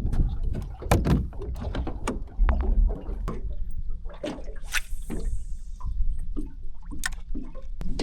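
Irregular knocks and splashing from a small boat on the water, over a steady low rumble.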